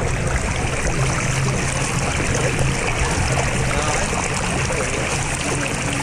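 Water rushing steadily down the open fibreglass chute of a high-speed body water slide, a constant hiss and splash.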